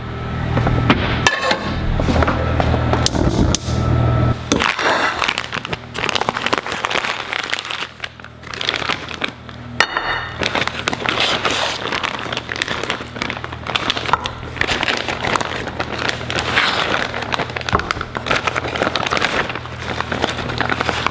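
Plastic packaging crinkling and rustling as raw pork chops are pulled from their bag and laid on a plate. A steady low hum sounds in the first few seconds.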